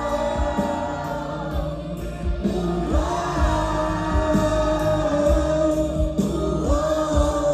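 Live band music with singing: long held sung notes over a steady drum beat and guitars, amplified through a stage sound system.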